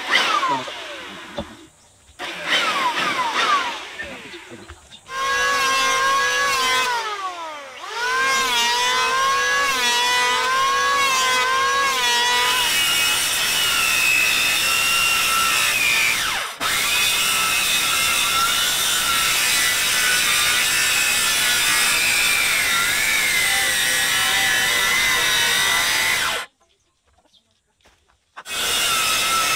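Electric power tool working a wooden tree stump, its motor whine dipping and recovering in pitch as it bites into the wood over a steady grinding noise. It breaks off for about two seconds near the end, then starts again.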